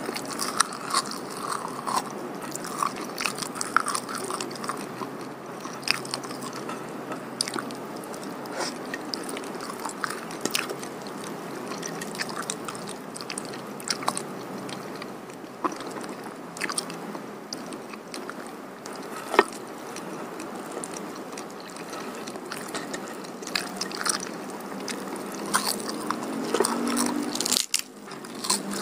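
Close chewing and wet mouth sounds of a person eating pecel sayur by hand, with many scattered sharp clicks and crunches as the vegetables and fried tofu are chewed.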